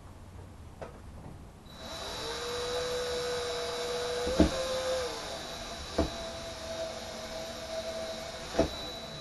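Cordless drill/driver running steadily, backing screws out of a ceiling panel. It starts about two seconds in, its whine moves to a higher note about halfway through, and a few sharp clicks stand out.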